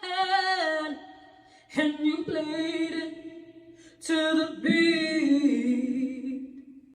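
A singer's voice holding and sliding long notes in three phrases, with short pauses between them.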